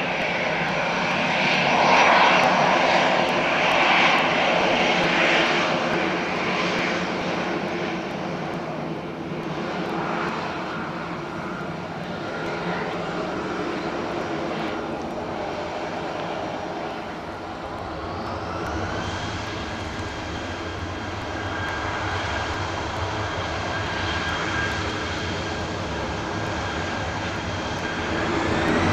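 Airbus A321 turbofan engines running at low thrust on the runway. About two-thirds of the way through they spool up: a whine rises in pitch and then holds steady over a deeper rumble. Near the end the whine rises again and grows louder as thrust is increased.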